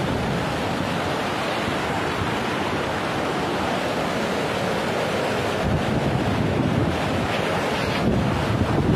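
Muddy flash-flood torrent rushing, a steady noise of fast-moving water. Wind buffets the microphone, more heavily from about halfway through.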